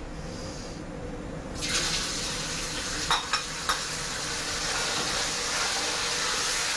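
Diced lean meat frying in hot oil in a wok: a steady sizzle that starts suddenly about a second and a half in as the meat hits the oil, with three quick clinks of the metal ladle against the wok as it is stirred.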